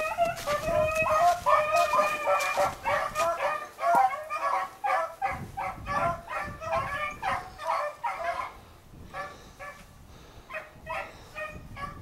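A pack of beagles baying on a rabbit's trail, several hounds giving tongue in quick overlapping cries; the baying thins out about two-thirds of the way through, then picks up again near the end.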